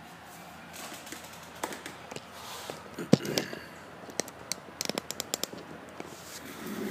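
Handling noise from a handheld phone being moved while filming: irregular sharp clicks and taps, a loud one about three seconds in and a quick run of them around five seconds in.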